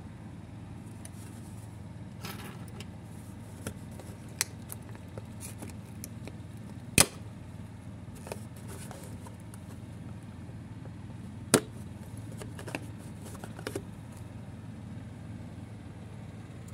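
A cardboard doll box and a small plastic doll being handled on a wooden tabletop: scattered light clicks and taps, with two sharp knocks about seven and eleven and a half seconds in, over a steady low hum.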